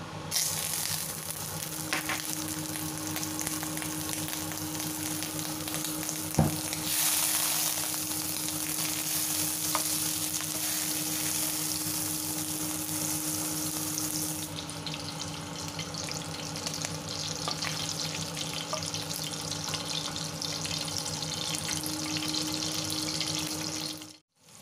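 Butter melting and sizzling in a hot stainless-steel wok, pushed around with a wooden spatula. The sizzle swells for several seconds a little after one sharp knock about six seconds in, then cuts off suddenly near the end.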